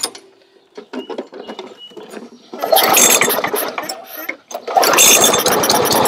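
Murray push mower's small engine being pull-started: it fires about two and a half seconds in, falters briefly, then catches and runs steadily from about five seconds on. It is starting after a new carburetor gasket was fitted to cure stalling, black smoke and hard starting, with the air filter off.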